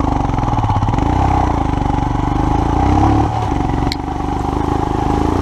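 Royal Enfield Himalayan's 411 cc single-cylinder engine running under way up a dirt road. The engine note dips briefly a little past three seconds in, and there is one sharp click just before four seconds.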